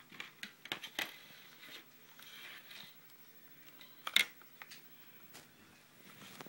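Plastic OtterBox phone case parts and packaging being handled: scattered small clicks and a soft rustle, with one sharp, louder click a little after four seconds in.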